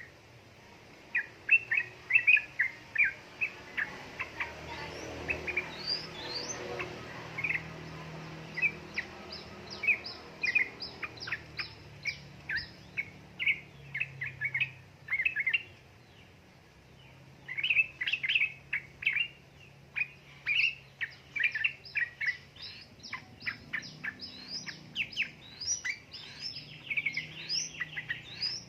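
Yellow-vented bulbul (trucukan) calling in a quick chattering run of short, sharp chirps. It breaks off briefly about halfway through, then resumes even more densely.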